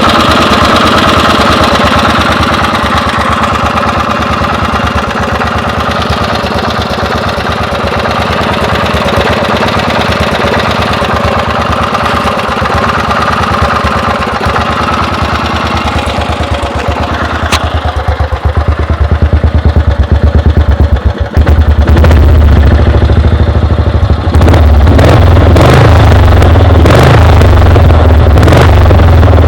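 Small engine of a custom lawn mower running steadily with rapid firing pulses. About two-thirds of the way in the sound grows louder, with a heavy low rumble and some irregular clatter.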